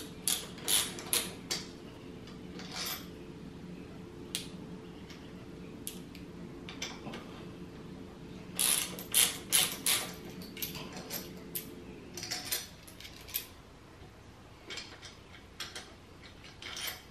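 Hand ratchet with an Allen socket clicking in short quick runs, with pauses between, as the handlebar clamp bolts are backed off.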